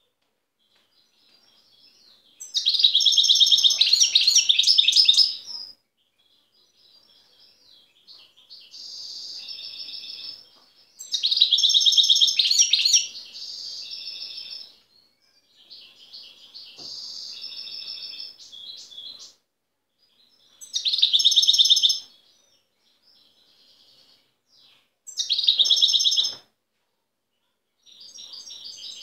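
European goldfinch singing its wild (natural, untutored) song in phrases: four loud bursts of fast, dense twittering, with quieter, sparser twitters and short pauses between them.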